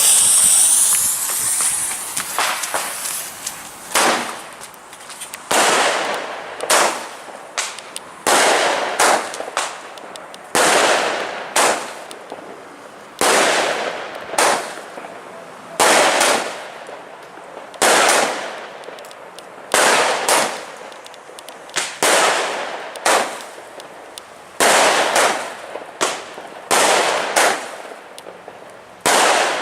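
Weco "Poison" Blitzschlag firework cake firing shot after shot, about one loud bang a second, some in quick pairs, each with a short fading tail.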